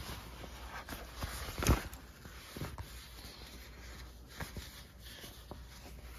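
A waterproof rain jacket's fabric rustling and rubbing as it is handled and turned over, with scattered soft ticks and a short thump about two seconds in as the loudest sound.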